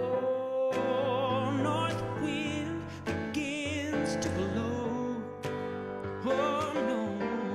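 Background music: a slow melody sung in long, wavering held notes over an instrumental accompaniment.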